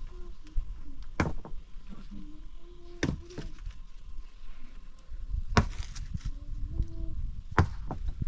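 Chopping: four hard strikes about two seconds apart, with lighter knocks between them.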